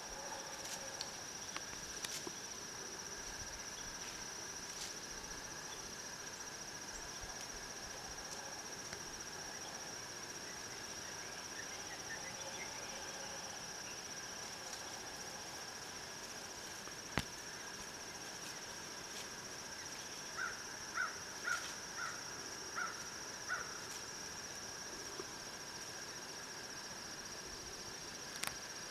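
Steady outdoor chorus of insects such as crickets, a continuous high trill. About two-thirds of the way in a bird gives a run of about six short calls, and there is a single sharp click.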